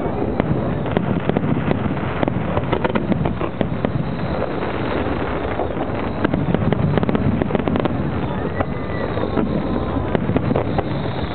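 Aerial fireworks bursting and crackling in a dense, continuous barrage of sharp cracks and bangs.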